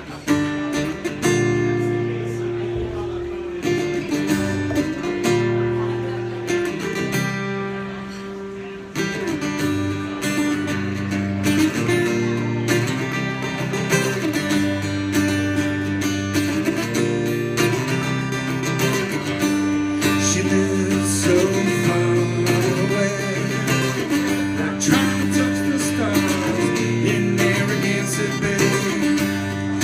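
Acoustic guitar strummed in a steady rhythm of chords as a song's instrumental intro. It thins out briefly about eight seconds in, then comes back fuller.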